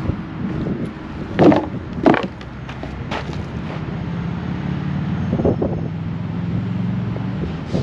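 A motor running steadily with a low hum that builds slightly in the second half, with several sharp knocks and clatters over it, the loudest two about a second and a half and two seconds in.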